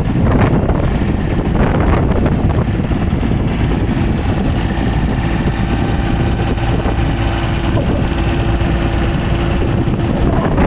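Wind buffeting heavily on the microphone over a running vintage tractor engine, with a steady engine hum coming through from about halfway in.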